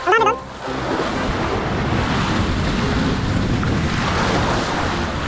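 Sea waves washing against the shore, with wind buffeting the microphone. A short warbling sound that wavers up and down in pitch comes right at the start.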